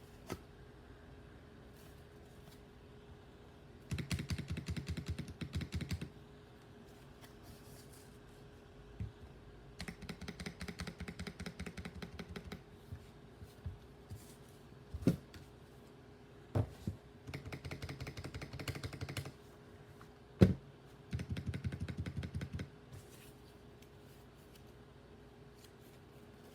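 Mechanical keyboard with lubed Akko CS Lavender Purple tactile switches being typed on in four bursts of rapid keystrokes. A few single, louder key presses fall between the bursts.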